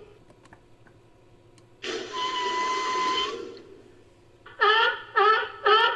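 Sea lion–style creature calls made from seal, sea lion and walrus recordings: one long hoarse call with a whistling tone, then three quick barks, each falling in pitch.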